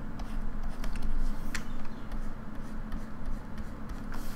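A few isolated clicks from computer input at the desk, over a steady low electrical hum.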